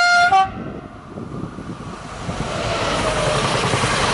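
An AGC regional train's two-tone horn steps from one note to the other and cuts off about half a second in. The train then draws near and passes close by, its running rumble of engine and wheels on the rails growing steadily louder.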